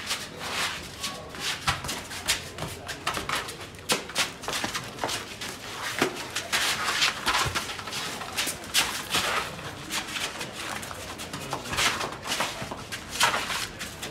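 Sandals and slides slapping and scuffing on paving stones, mixed with knocks of a rubber ball being kicked about, in quick irregular clicks.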